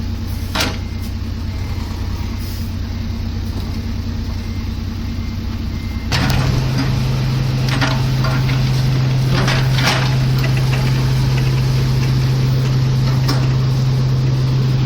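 Heavy machine engine running steadily. About six seconds in its speed steps up suddenly and holds at a louder, higher steady pitch, with a few knocks and clanks.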